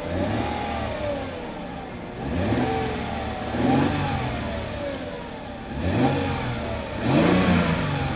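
A 2003 Mercedes-Benz E320's 3.2-litre six-cylinder engine being revved in neutral, heard from inside the cabin. It is blipped about five times, each rev rising and then falling back toward idle.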